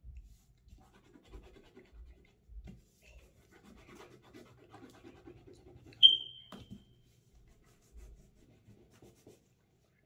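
Crayon scratching and rubbing on paper as a drawing is coloured in, with soft thumps on the table. About six seconds in, a sharp tap with a brief high ring, the loudest sound.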